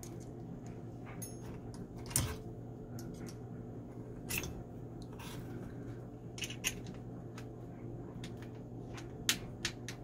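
A handful of sharp clicks and light knocks as the plastic discharge elbow and its bolts are handled and fitted to a garbage disposal, over a steady low hum.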